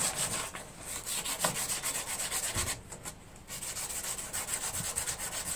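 Fine sandpaper, held by hand, rubbed back and forth over a hardened hot-glue patch on a plastic lawn-tractor hood grille, in quick rapid strokes with a short pause about three seconds in. The patch is being smoothed before primer.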